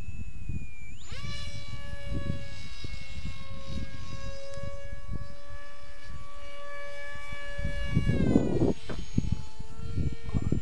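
Electric RC plane's brushless motor and propeller whining. It is throttled up sharply about a second in, held at a steady pitch, then throttled back about 8 seconds in. Gusty wind buffets the microphone throughout and gets rougher near the end.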